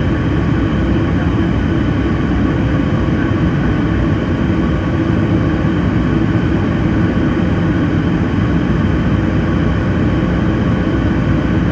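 Steady cabin noise inside a Boeing 737 MAX 9 during its climb after takeoff: the CFM LEAP-1B engines' deep hum and rushing airflow, with a few faint steady tones above it.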